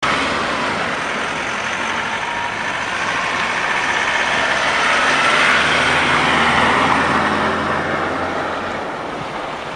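Vehicle engine running with tyre and road noise on a snow-covered street, growing louder about halfway through and easing off near the end.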